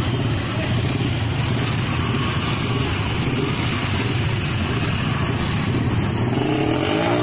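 Several motorcycle engines running steadily in a low drone, held under load as the bikes pull against ropes held by a man.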